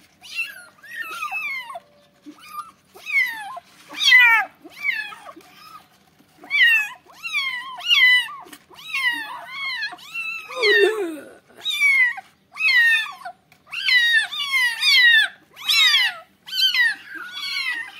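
Several young kittens mewing over and over in distress at their first bath in a bucket of water: a quick run of short, high cries, each falling in pitch, often overlapping.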